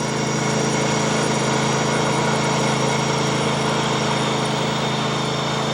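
A small engine running steadily at an even pitch throughout.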